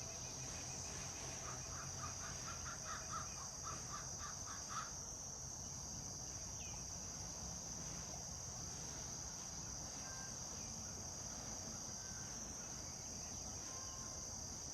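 Crow giving a fast series of short, odd cawing notes, a few a second, that stops about five seconds in. A steady high-pitched insect drone runs underneath throughout.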